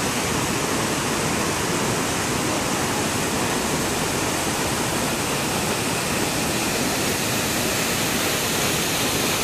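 Mountain waterfall rushing: a steady, even noise of falling water with no breaks.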